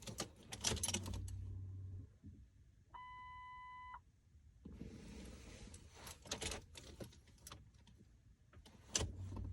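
Keys jangling and clicking at the ignition of a 2000 Lincoln Town Car, with a short low hum about a second in and again near the end. The car's warning chime sounds a steady tone for about a second around the middle.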